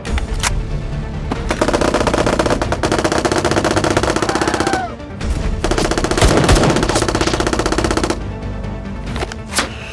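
Rapid automatic fire in two long bursts, each a few seconds long, with a few single shots before and after, over background music.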